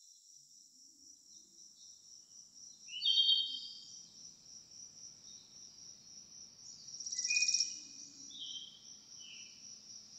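Insects trilling steadily in a high, pulsing tone, with a bird's short calls loudest about three seconds in and several more in the second half.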